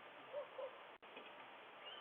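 Faint steady hiss from a doorbell camera's microphone, with two short faint calls about half a second in and a brief drop-out in the sound at about one second.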